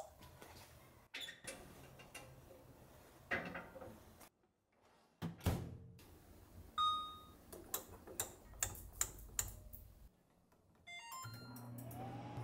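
Kitchen handling knocks and clicks, then a single electronic beep and a run of light taps, as of buttons being pressed on an appliance panel. Near the end a short falling electronic chime plays, and a motor starts up with a rising whine that settles into a steady hum, as a countertop oven begins running.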